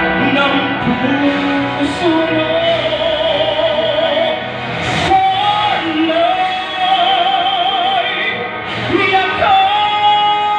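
A male singer performing a ballad into a microphone over instrumental accompaniment, holding long notes with vibrato.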